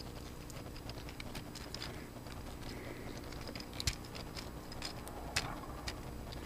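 Plastic parts of a Transformers Beast Hunters Optimus Prime action figure clicking and tapping softly as it is twisted and folded into vehicle mode, with a sharper click about four seconds in and another about five and a half seconds in.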